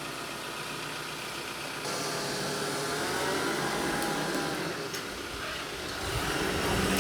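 Tractor diesel engine running steadily, a little louder from about two seconds in.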